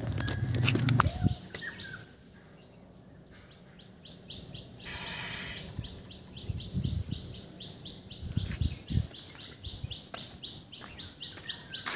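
A small bird chirping in a quick, even series of short high notes, about four a second. A brief hiss comes about five seconds in, and a few low thumps come near the end.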